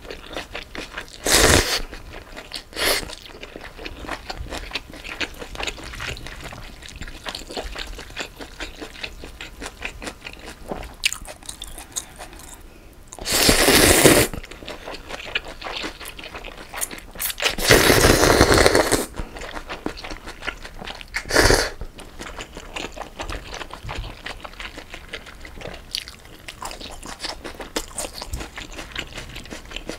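Close-miked slurping of pho rice noodles and broth from a spoon: four loud slurps, the longest about a second and a half, with soft wet chewing and small mouth clicks between.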